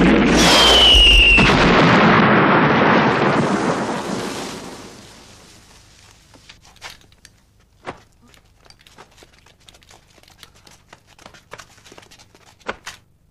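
A loud film explosion that rumbles and fades away over about five seconds, with a brief falling whistle in its first second. Afterwards there are only faint scattered clicks and crackles.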